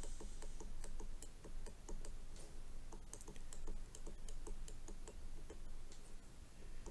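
Plastic stylus tip tapping and clicking against a tablet's glass screen in quick, irregular strokes, a few light clicks a second.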